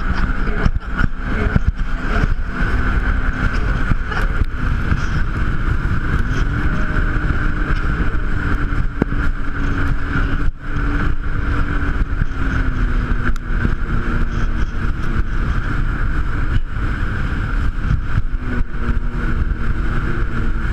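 Jet ski engine running under way, its pitch wavering up and down with the throttle, with wind rumbling on the microphone.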